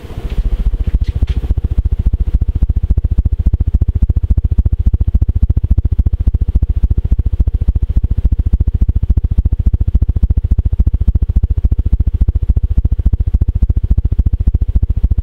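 Tatung CFC-52 ceiling fan running at high speed in reverse, its blade wash buffeting the microphone as a loud low rumble that pulses rapidly and evenly. It comes up suddenly at the start and then holds steady.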